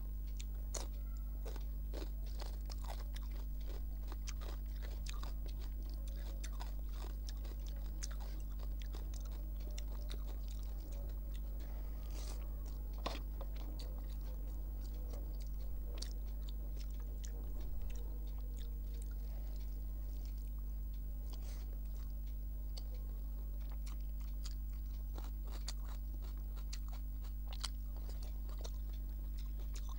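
Close-miked mouth sounds of a person eating rice and curry by hand: chewing and biting with many scattered sharp clicks, a few of them louder, over a steady low hum.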